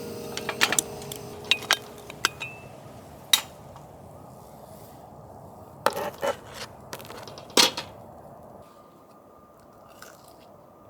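A series of sharp knocks and clicks, like objects being handled and set down, loudest about six and seven and a half seconds in. Background music fades out in the first two seconds.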